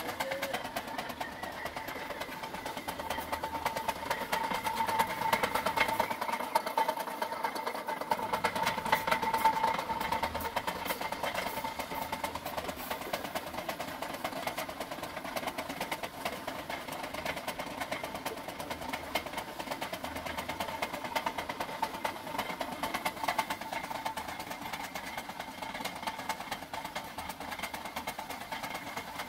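Homemade flywheel generator rig running: a steady mechanical whir with a high hum, a little louder between about five and ten seconds in.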